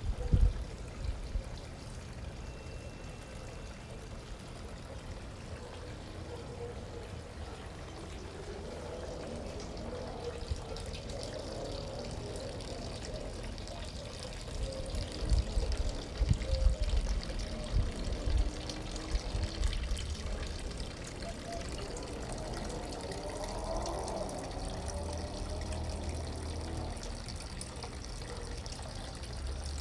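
Steady trickle of running water, with a few low bumps on the microphone around the middle.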